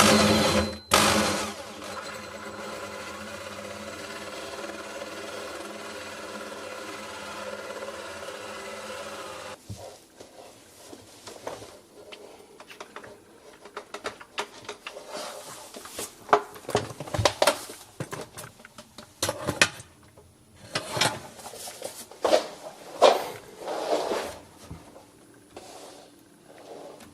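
Electric drill running steadily for about ten seconds, boring the hole through the wooden cabinet panel for the dishwasher's cable and hoses. It stops suddenly, and scattered knocks and taps follow as the wood is handled.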